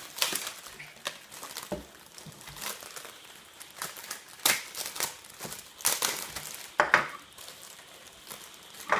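Plastic packaging crinkling and tearing as it is pulled off spring clamps, in irregular sharp rustles, some louder than others.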